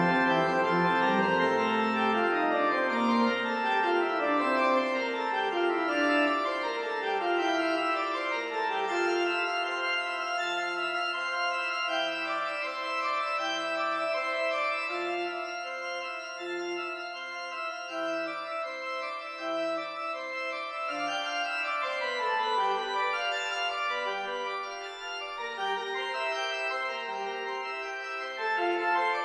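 Pipe organ playing: quick runs of notes stepping downward over the first several seconds, then a held chord over a short low note repeated about once a second, the music shifting lower again near the end.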